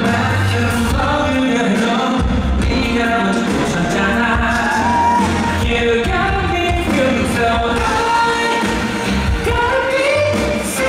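A male singer performing a pop song live over backing music.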